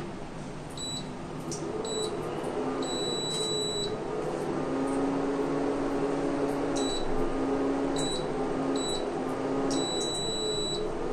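Prestige induction cooktop switched on and showing its E9 error code. Its fan hums steadily while the control panel gives high-pitched beeps: two short beeps, then a longer one about a second long, and then the same pattern again near the end.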